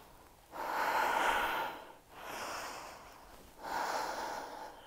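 A woman breathing deeply and audibly while holding a yoga pose: three long breaths, the middle one softer.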